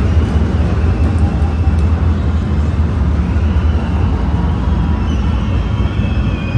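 Loud, steady noise of a packed, sold-out arena crowd, with a heavy low rumble.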